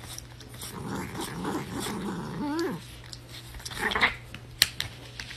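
A cat growling in low, wavering tones, with a short rising-and-falling yowl about halfway through. There are a few sharp taps later on.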